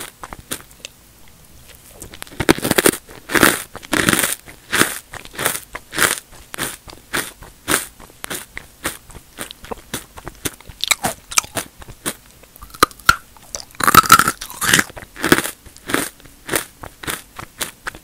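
Close-miked crunching and chewing of square potato and sweet potato chips with closed lips: a steady crackle of small crunches, with louder bursts of crunching a few seconds in and again about fourteen seconds in.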